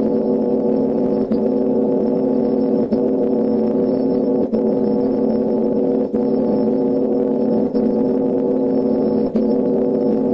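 Mock emergency-alert alarm: a loud, organ-like chord of several held tones that breaks off briefly and restarts about every second and a half, over and over.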